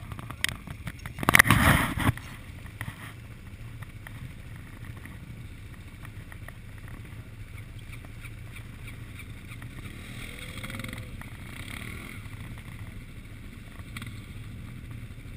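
Quad bike engines idling with a steady low hum. About a second and a half in there is a loud, brief burst of handling noise on the chest-mounted camera.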